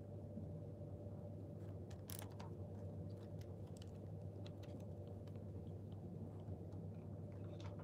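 Steady low room hum with scattered faint clicks and knocks from handling at a podium, the loudest cluster about two seconds in.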